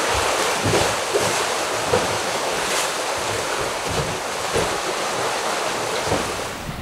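Steady rush of open-ocean waves and wind as a sailing catamaran moves along, with wind buffeting the microphone in small, uneven surges.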